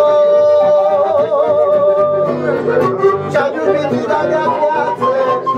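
Live folk music from a small band: a man singing over accordion and guitar, holding one long note for about two seconds at the start before the melody moves on.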